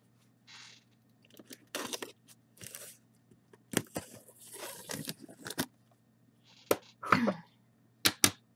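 Packing tape on a cardboard box being slit with a small blade and torn: irregular scraping and tearing strokes with several sharp cardboard cracks as the flaps are pulled open near the end.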